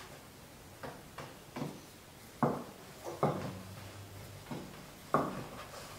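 Wooden rolling pin rolling out dough on a wooden pastry board: about seven short wooden knocks and clunks as the pin strikes and rolls across the board.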